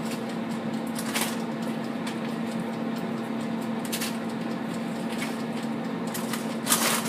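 Steady electric hum and fan noise from a running Della air fryer, with a few brief rustling clatters as frozen mixed vegetables are added to a rice cooker's steamer basket. The loudest clatter comes near the end.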